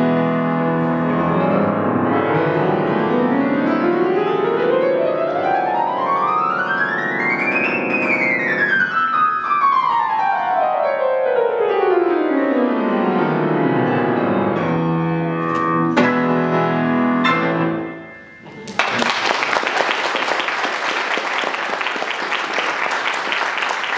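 Grand piano played four-hands: a long run climbs up the keyboard and comes back down, then chords close the piece about 17 seconds in. Audience applause starts a couple of seconds later and keeps going.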